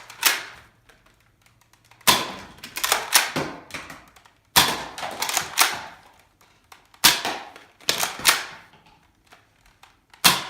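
Nerf Mega Cyclone Shock toy blaster being primed and fired over and over: four bursts of sharp plastic clacks and snaps, each round coming roughly every two and a half seconds.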